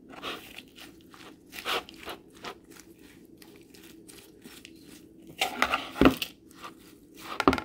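A metal spoon tossing chopped fresh lettuce and herbs with sour cream in a plastic bowl: repeated crunchy rustling strokes of the leaves and spoon, loudest about six seconds in and again near the end.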